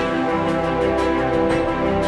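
Background music: held, chord-like notes over a light beat about twice a second.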